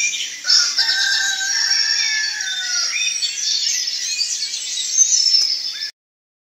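A rooster crowing among chirping small birds, the calls overlapping with several gliding, falling notes; the sound cuts off abruptly about six seconds in.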